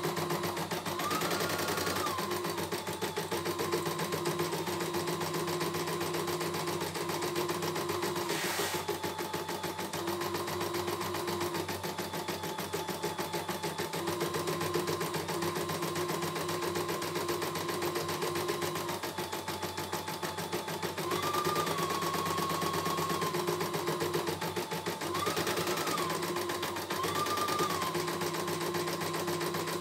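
CNY E900 computerized embroidery machine stitching a design at a steady, fast pace, running smoothly. Rapid, even needle ticking runs over a motor whine that steps up and down in pitch several times, with one sharp click about nine seconds in.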